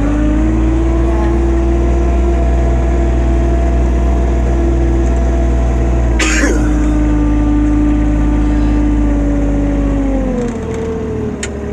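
ATV engine running at a steady speed, with a brief rush of noise and a small dip in pitch about six seconds in. Near the end the engine winds down as the ATV slows.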